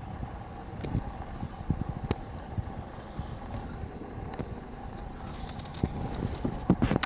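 Steady hum inside a car's cabin with a constant mid-pitched tone. Irregular knocks and rubbing from handling lie over it and bunch together near the end.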